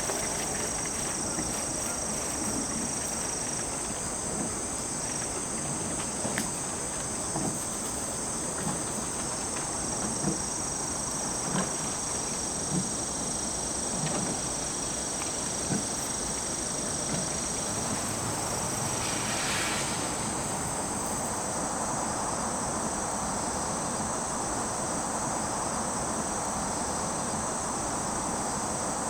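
Insects chirping in a steady, high-pitched chorus, with a few faint soft knocks scattered through it.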